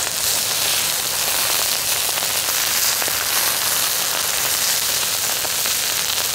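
Food sizzling on a hot griddle: a steady, dense hiss with many small crackling pops.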